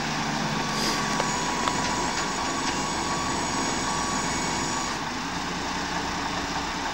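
Heavy diesel engine of a truck-mounted crane or lorry running steadily, with a faint high whine for a few seconds in the middle.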